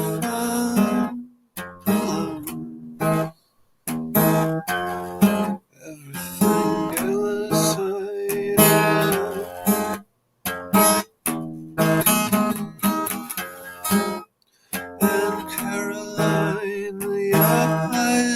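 Acoustic guitar strummed in chords as an instrumental passage of a song, with several brief stops where the sound cuts out.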